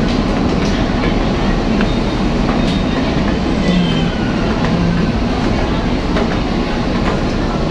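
Loud, steady mechanical rumble of a roll-on/roll-off ferry's engines and machinery, heard in the stairwell above the vehicle deck, with a few light footfalls on the metal stairs.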